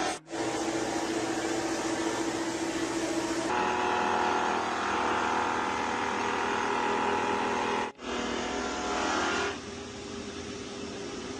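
A motor or power tool running steadily, in several short segments that change abruptly from one to the next.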